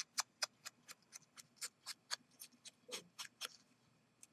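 Faint, even tapping, about four light taps a second: a sponge dabbing ink onto small pieces of punched cardstock.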